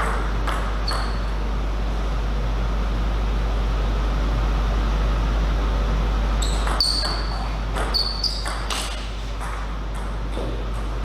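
Table tennis ball clicking against the bat and table: three sharp ticks in the first second, then a quick run of ticks about seven to nine seconds in, over a steady hall hum.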